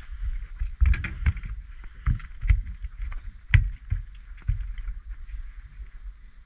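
Irregular sharp knocks and thumps as a freshly landed black bream flaps on the carpeted floor of a small boat and is handled for unhooking, over a steady faint hiss. The knocks fall mostly in the first four and a half seconds.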